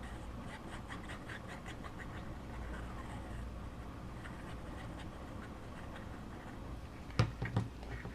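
Faint rustling and light taps of cardstock being handled while paper flaps are glued down, with two sharper knocks about seven seconds in.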